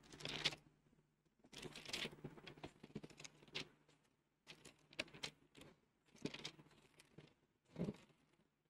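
Faint, intermittent rustling and soft clicks of paper pages being turned, as a Bible is leafed through to find a passage.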